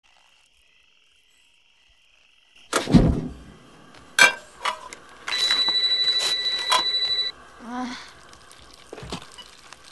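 A heavy thud about three seconds in and a couple of sharp clicks, then a telephone ringing with a pulsing electronic trill for about two seconds. A short pitched sound and a click follow near the end.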